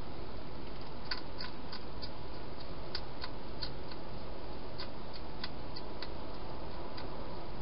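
Hedgehog crunching dry food: irregular sharp little clicks and crunches over a steady hiss.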